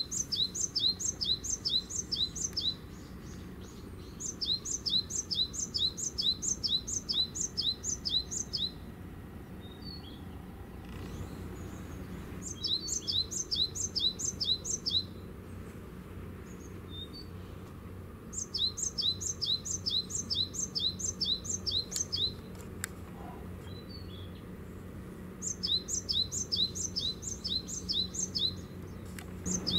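A songbird singing phrases of quick, high, paired chirps, five phrases of two to four seconds each with short pauses between, over a low steady hum.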